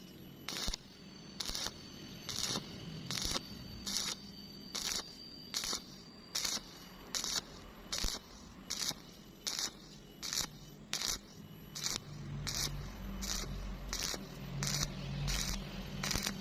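Welding arc on thin sheet metal, struck in short hissing bursts at a steady rhythm of a little over one a second: a stitch-welding pass made downhill.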